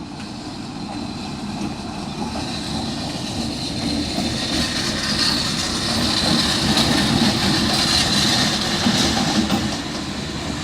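Diesel-electric locomotive moving along the track, its engine and wheel noise growing steadily louder, with a thin high tone through the middle, then easing slightly near the end.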